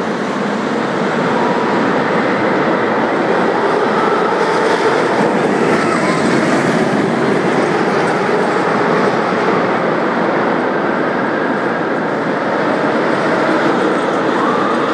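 Amusement park roller coaster train running along its track, a loud steady rumble of wheels with a few faint squeals.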